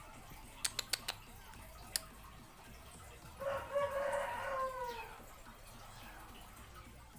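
Four quick sharp clicks, then one more, followed by a single drawn-out animal call lasting about a second and a half that holds its pitch and drops at the end.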